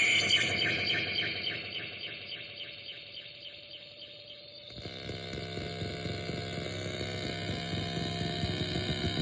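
Phantom Cell touch-based noise synthesizer: a high, stuttering tone of about five pulses a second fades away over the first few seconds. About five seconds in, a low, rapidly fluttering drone starts suddenly and slowly swells.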